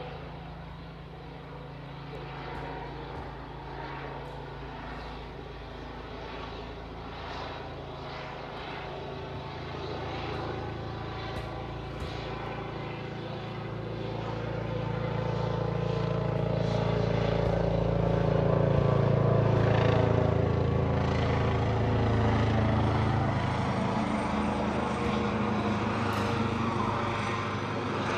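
Police helicopter flying overhead, its rotor and turbine making a steady low drone that grows louder about halfway through as it comes closer, then eases slightly near the end.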